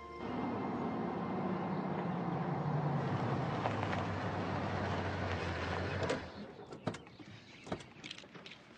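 An SUV's engine running steadily with tyre and road noise as it pulls up and stops; the engine cuts off about six seconds in, followed by a few clicks and knocks of the car door being opened.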